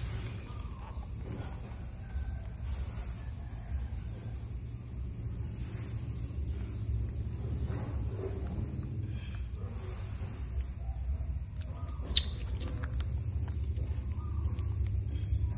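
A high-pitched insect trill, steady with a few short pauses, over a low hum, with one sharp click about twelve seconds in.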